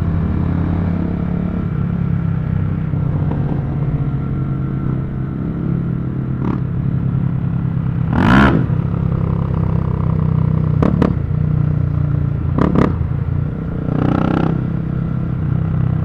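Motorcycle engine and exhaust running steadily while riding, a low even drone, with several short sharp bursts over it, the loudest about eight seconds in.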